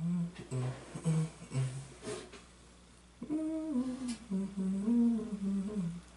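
A person humming with closed lips: a few short low notes in the first two seconds, then a longer wavering hummed phrase starting about three seconds in.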